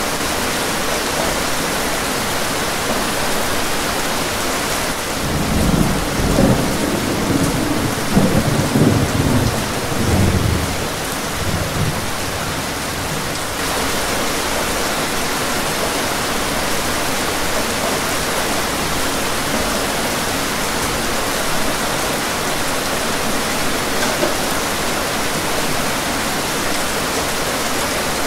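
Steady rain hiss through a thunderstorm, with a long rolling rumble of thunder starting about five seconds in and dying away some seven seconds later.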